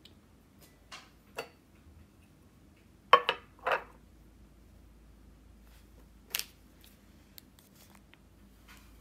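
Tabletop handling sounds: a couple of light clicks, then a drink can set down on the table with two or three quick knocks about three seconds in, the loudest sounds here. A single sharp click follows a few seconds later, then faint ticks.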